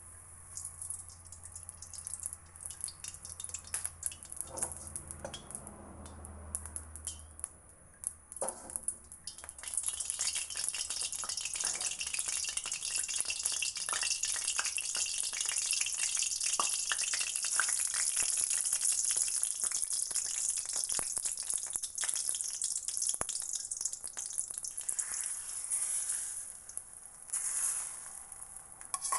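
Hot oil sizzling and spattering in a stainless steel wok. Scattered crackles and pops at first, then about ten seconds in it turns to a steady, dense sizzle that thins out near the end.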